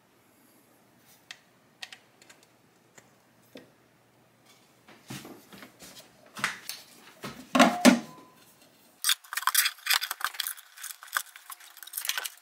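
Plastic and cable handling noise: clicks, scrapes and rattles as a YoLink hub's micro USB power cable and AC adapter are handled and plugged into a power outlet. Scattered light clicks at first, then louder rustling and clattering over the last several seconds.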